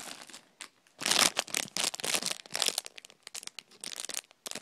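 Crinkly packaging being handled, rustling and crumpling in a string of irregular bursts that begin about a second in.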